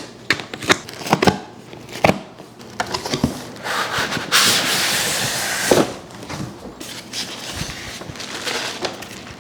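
Cardboard box packaging being handled while a typewriter is unpacked: scattered knocks and rubs, with a loud sliding scrape lasting about two seconds that starts about four seconds in, then quieter rustling.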